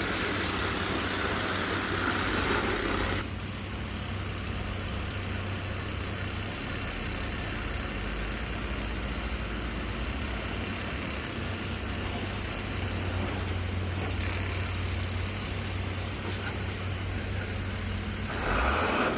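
Heavy diesel engine running steadily with a low hum. It is louder and noisier for the first three seconds, drops suddenly to a quieter steady level, and rises again near the end.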